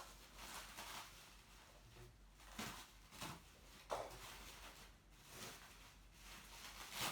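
Faint handling noises: a few short clicks and rustles spread through otherwise quiet room tone.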